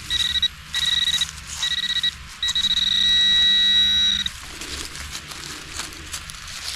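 A handheld metal-detecting pinpointer probe sounding on a buried metal target: three short electronic beeps, then a steady tone lasting nearly two seconds.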